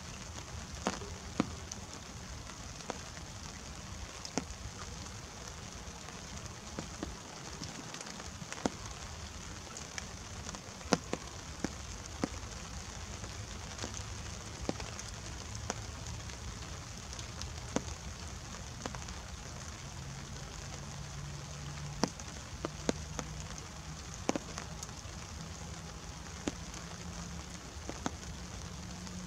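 Light rain: a steady soft hiss with single drops tapping irregularly close by, roughly one a second. A faint low hum rises in steps in the second half.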